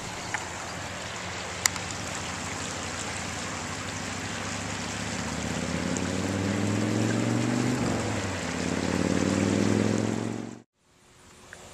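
A steady rush of flowing floodwater. Over the second half a vehicle engine comes in, rising in pitch and getting louder toward the end, before the sound cuts off abruptly.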